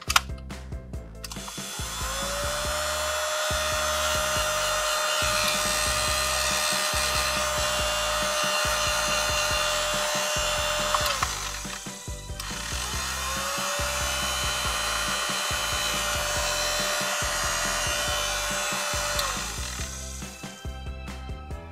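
Pink toy hair dryer's small electric motor whirring with a steady whine, run twice: it rises in pitch as it spins up, runs about nine seconds, stops, then runs again for about six seconds. A sharp click comes just at the start.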